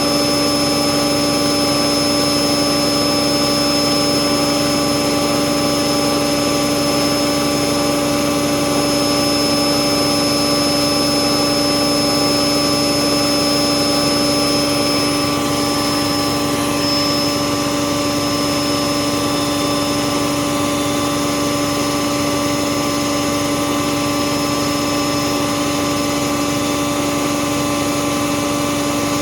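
Bauknecht WAS 1400 washing machine running with a steady motor hum of fixed pitch, the tone changing slightly about halfway through.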